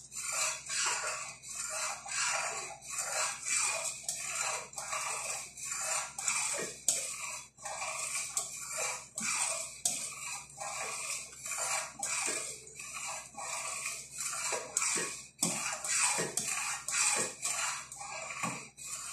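A metal spoon stirring and scraping around a stainless steel pot of pinipig cooking in milk, in a steady run of strokes at about two a second.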